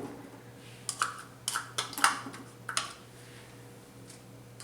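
Chopped celery being added to a pot: a quick run of light clicks and taps, mostly in pairs, as pieces and a utensil knock against the pot and board.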